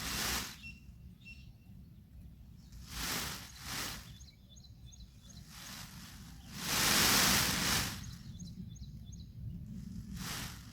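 Outdoor ambience: surges of rushing noise, each lasting about a second, come and go several times over a steady low rumble. Faint, small, high bird chirps can be heard in the quieter gaps.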